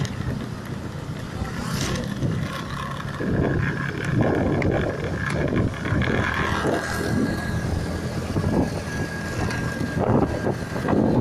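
A vehicle engine running steadily with a low hum, with gusts of wind buffeting the microphone from about three seconds in.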